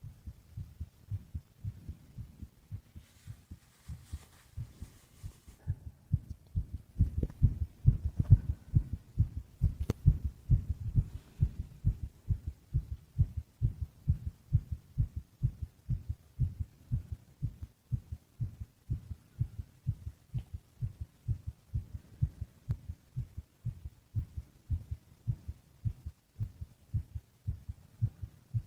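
Human heartbeat: a steady, regular run of soft, low lub-dub thumps, louder from about seven seconds in.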